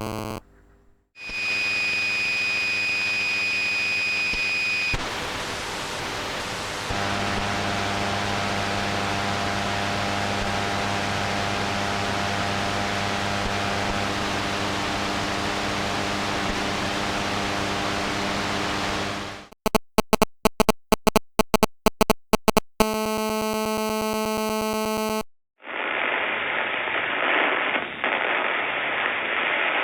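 A run of electrical interference sound effects. First comes a long stretch of static hiss with a steady hum under it, and a high whistle over it at the start. Then loud rapid clicking pulses, about four a second for some three seconds, a short buzzing tone, and near the end a duller crackling static.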